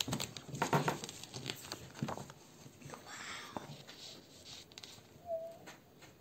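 Hands handling a plexiglass die-cutting plate and sheet paper on a table: a run of light taps and knocks, then a short rustle of paper about three seconds in, and a brief squeak a little after five seconds.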